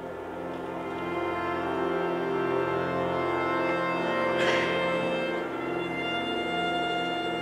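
Cello, accordion and string orchestra playing sustained held chords that swell in loudness, with a brief hissing swish about halfway through and new high held notes entering near the end.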